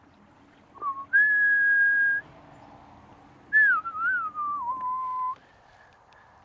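A person whistling: a short note, then a high note held for about a second, then after a pause a note that wavers and slides downward before holding on a lower pitch.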